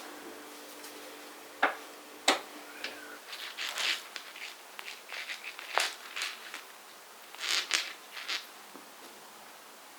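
Household handling sounds: two sharp clicks, then a string of short scraping and rustling noises. A steady low hum stops about three seconds in.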